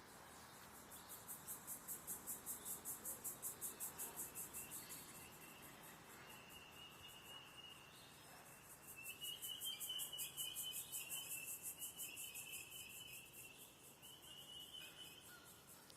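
Insect chirring in a fast, even, high-pitched pulse, about five beats a second, swelling twice and fading between. A thin, wavering bird call runs through the second half.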